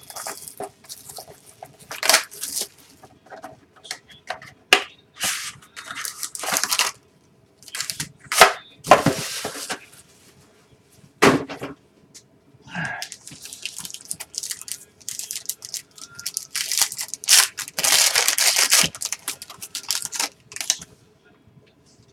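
Trading-card box being opened by hand: cardboard and plastic wrapping tearing and crinkling in irregular bursts, with sharp snaps and clicks.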